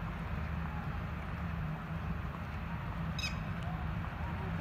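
A short, sharp bird call about three seconds in, with faint wavering calls near the end, over a steady low rumble.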